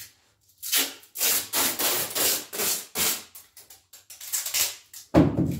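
Tape and plastic being worked at a window being sealed against the cold: a run of short, rasping, rustling strokes as the tape is pulled and pressed, then a louder thump near the end.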